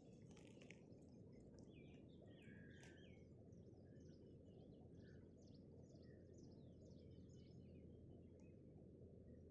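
Faint low steady rumble of background noise, with small birds chirping and calling faintly many times throughout.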